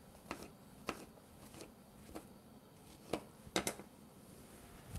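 Knife cutting through a fibrous mushroom stem on a cutting board: faint, irregular taps and clicks, two in quick succession about three and a half seconds in.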